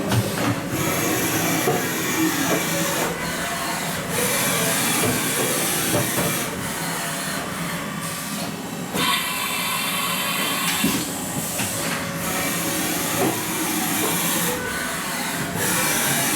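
Haas VF-4 vertical machining center running: a steady hissing machine noise that changes abruptly every second or two, with a faint high whine about nine seconds in.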